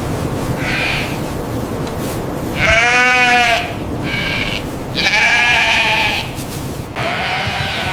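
Sheep bleating, several wavering bleats from a flock, the two loudest about three and five seconds in, over a steady low background rumble.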